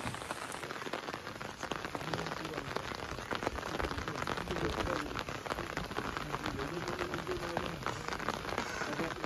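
Steady rain falling, with many drops ticking sharply on an umbrella held overhead.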